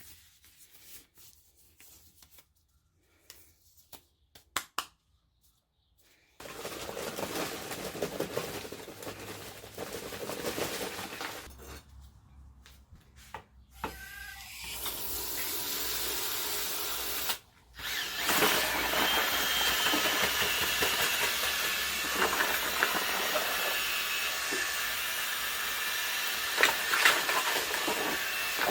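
A few faint clicks. Then, about six seconds in, a power tool starts and runs with a rough, hissing noise. It eases off briefly a little before halfway, then runs steadily with a wavering high whine.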